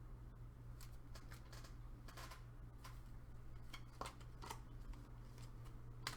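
Faint handling of trading cards: a scatter of small clicks, slides and rustles at irregular moments, over a steady low hum.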